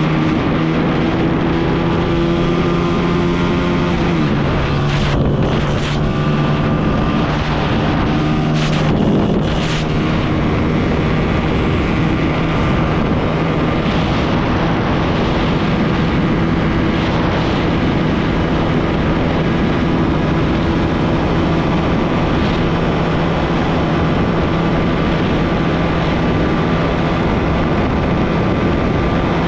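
Honda CG 125 motorcycle engines running at full throttle in a drag race, with wind noise over the microphone. The engine note drops at gear changes about 4 and 9 seconds in, then holds steady.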